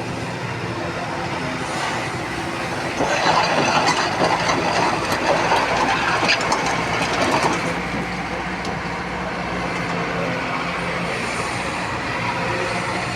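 Heavy diesel engine running steadily, with a louder clattering rattle from about three seconds in that dies away after about seven seconds.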